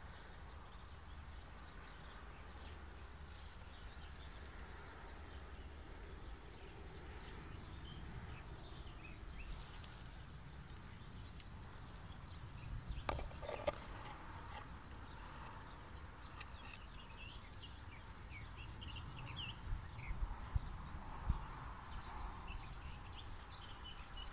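Faint outdoor field ambience: a low wind rumble with scattered short, distant bird chirps, and a few light knocks about halfway through.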